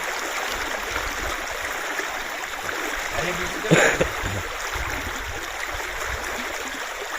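Stream water rushing steadily, with one short louder burst a little under four seconds in.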